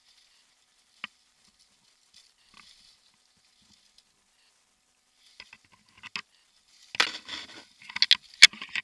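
Rustling and scraping of a tree climber's rope, gear and clothing against the bark, with a sharp click about a second in and another near the end; the scraping grows louder and busier over the last few seconds.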